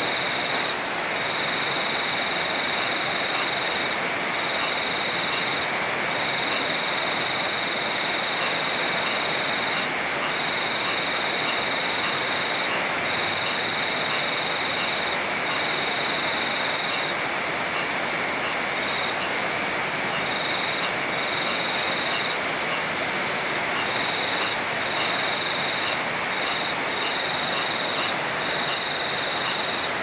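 Heavy rain and a rushing river: a steady, even rushing noise with no breaks. A thin high tone cuts in and out every second or two over it.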